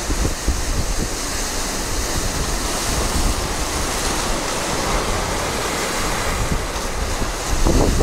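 Mediterranean sea waves washing and breaking over a rocky breakwater, a steady rushing hiss. Wind buffets the microphone, heavier near the end.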